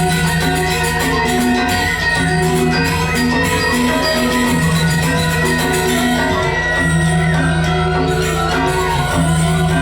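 Balinese gamelan playing dance music: bronze metallophones ring in quick repeated notes over long held low notes.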